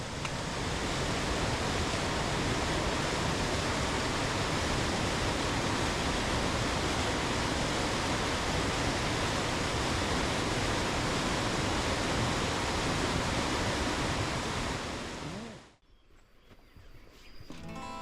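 Loud, steady rush of fast-flowing water, like a mountain stream or waterfall close by. It cuts off abruptly about 16 seconds in, and faint guitar music begins near the end.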